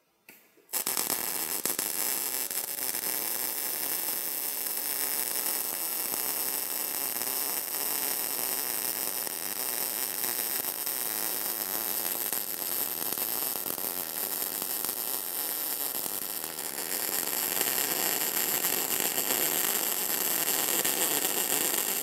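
MIG welding arc striking about a second in and sizzling steadily. Roughly two-thirds of the way through it turns louder and harsher, which is typical of the arc running on after the shielding gas is shut off: something going drastically wrong, with the weld turning porous.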